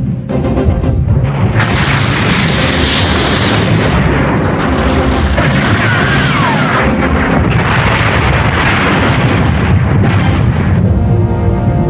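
Cartoon space-battle sound effects: continuous cannon fire and explosions booming over dramatic background music, with a brief gliding whistle about halfway through.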